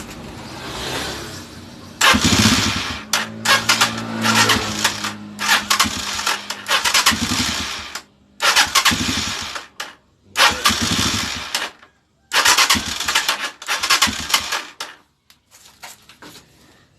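Motorcycle engine being started again and again, each time running only a second or two before cutting off abruptly. It starts hard, which the mechanic puts down to a valve with too little clearance.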